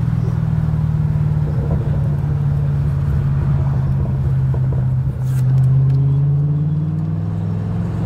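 Cabin noise of a 2012 Camaro SS's V8 cruising at highway speed: a steady low engine and road drone. A brief click about five seconds in, after which the drone swells a little and rises slightly in pitch.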